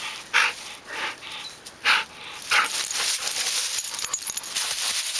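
A Rhodesian ridgeback–American bulldog mix panting in a few short, breathy bursts while rolling in dry fallen leaves. From about halfway through, the crackle and rustle of the leaves under her becomes continuous.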